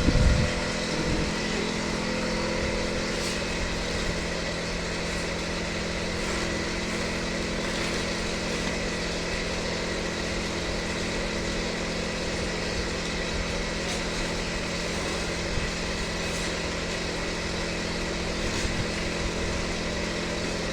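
Large engine lathe running steadily under power: a continuous mechanical hum of the spindle drive and gearing with several steady tones, and a few faint ticks.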